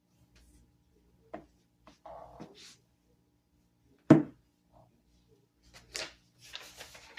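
Plastic parts being handled and knocked together during assembly: scattered clicks and rustles, with one sharp knock about four seconds in and a clatter near the end.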